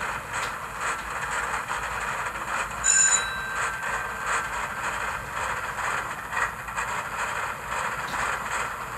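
H0-scale Zugspitzbahn rack-railway locomotive model running on its track, its small DC motor humming under the running sounds of its ESU LokSound 5 sound decoder. About three seconds in, a single bell-like ringing tone sounds and fades away.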